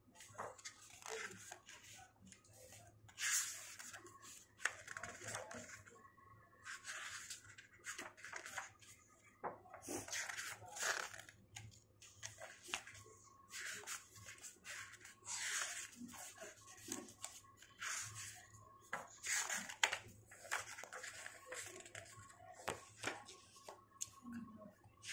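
Pages of a hardcover graphic novel being turned by hand one after another: a quick paper swish or rustle every second or two.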